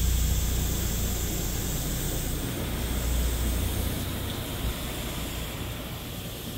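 High-pressure water jets of a touchless automatic car wash spraying the car, heard from inside the cabin as a steady hiss over a low rumble. The rumble eases off after about four seconds.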